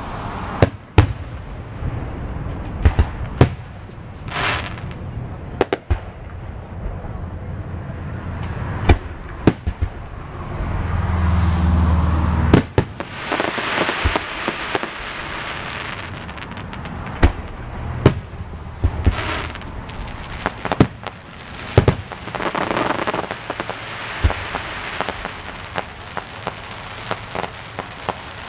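Aerial fireworks shells and salutes bursting a few hundred yards off, heard as a long irregular run of sharp pops and bangs with a hiss of noise between them. There is a stretch of low rumble just before the middle.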